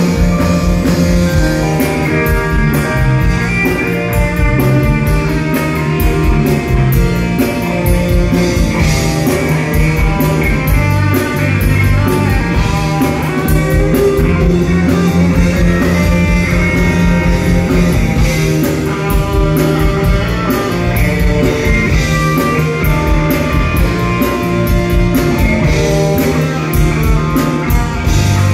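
Live rock band playing an instrumental passage with no singing: electric guitars over bass and a drum kit, loud and steady throughout.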